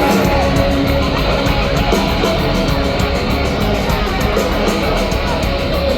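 Nu-metal band playing live and loud: distorted electric guitar riff over heavy bass and a steady drum beat.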